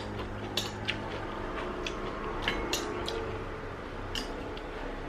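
Eating utensils clinking and tapping against a bowl of ramyun noodles, a handful of short separate clicks spread irregularly, over a low steady hum.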